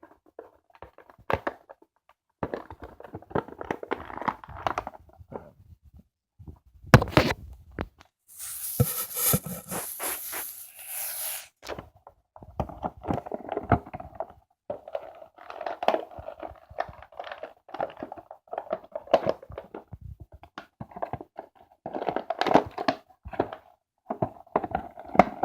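Action-figure blister packaging being opened by hand: scattered knocks and scrapes, a few seconds of tearing about nine seconds in, then plastic and cardboard crinkling as the packaging is worked apart.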